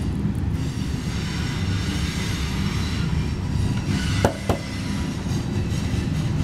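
Steady low rumbling noise with a faint high whine running through it, and two sharp knocks about four seconds in.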